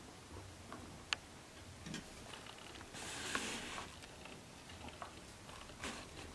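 Guinea pigs moving about on a fabric floor mat: faint scattered ticks and taps, a single sharp click about a second in, and a short rustle of the cloth tunnel about three seconds in.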